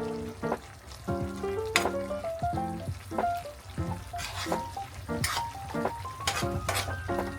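Mackerel sardines sizzling in a frying pan, with short scraping strokes of a utensil stirring them every second or so. Background music with changing melodic notes plays over it.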